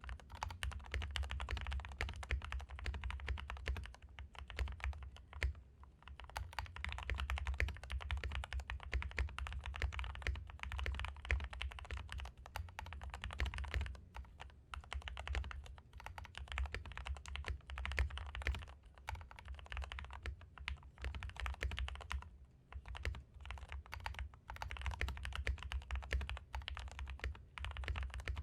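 Typing on a Royal Kludge G68 Plus mechanical keyboard with lubed Gateron Milky Yellow linear switches, foam-dampened case and low-profile keycaps: a deep, muffled thock of fast keystrokes in bursts, with short pauses. A steady low hum sits under it.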